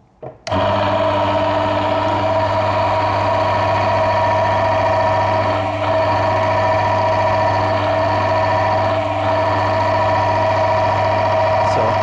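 Electric motor of a Brugger-type bench friction-test machine switching on about half a second in and then running steadily: a constant low hum with a higher steady whine as the test shaft turns under lever load. The lubricating oil has micro-ceramic additive in it, which is said to reduce the noise and friction.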